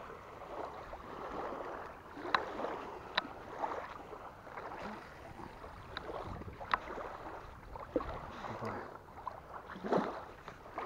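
Small waves lapping at a sandy lake shore, with a few sharp clicks as a spinning reel and feeder rod are handled before a cast.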